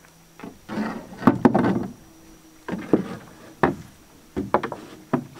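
Irregular knocks and thumps of a canoe being launched and loaded with packs: a quick run of them in the first two seconds, then single knocks every half second to a second.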